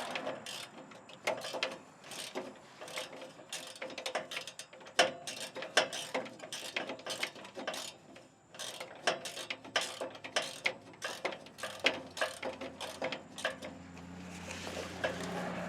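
Hand socket ratchet clicking in quick, irregular runs while a starter bolt is worked. A low steady hum comes in near the end.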